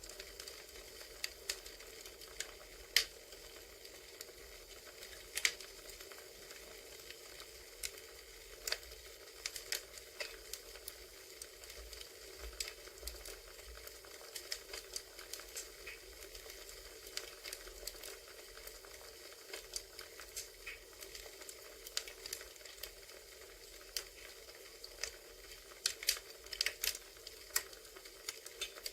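Crackling wood fire from a campfire ambience track: a steady hiss with irregular sharp snaps and pops, a few louder ones about three seconds in and near the end.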